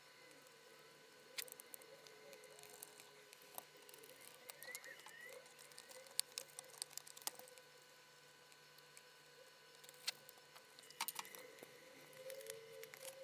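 Near silence broken by scattered light clicks and taps of projector parts being handled and fitted together, with a cluster of clicks about 10 to 11 seconds in, over a faint steady hum.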